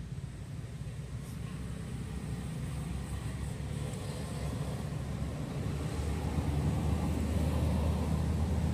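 Low rumble of a motor vehicle's engine running, growing louder about six seconds in as it draws closer.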